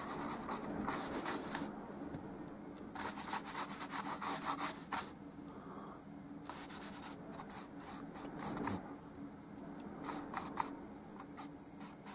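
An old, trimmed-down paintbrush scrubbing oil paint onto a stretched canvas: scratchy rubbing strokes in bursts with short pauses between them. A faint steady low hum lies underneath.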